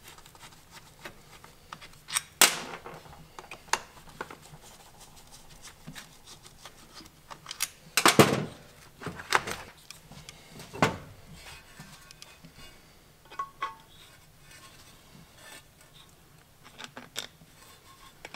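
Clicks, taps and knocks of hard plastic and metal parts being handled on a workbench: a screwdriver working the screws of an intake-pipe sensor, and the sensor being taken off and fitted to a new intake pipe. The loudest knocks come about two seconds in and about eight seconds in.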